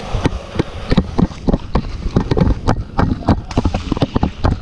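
Quick footsteps on a hard floor, about five a second in an uneven beat, with gear knocking along with them.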